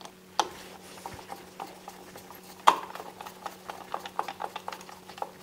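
Screwdriver turning the centre screw of a Schuko wall socket's plastic cover plate: a run of small irregular clicks and scrapes, with a sharper click about two and a half seconds in.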